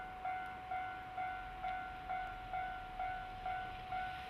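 Electronic railway level-crossing warning bell ringing in an even clang-clang rhythm, about two strikes a second. It signals that a train is approaching.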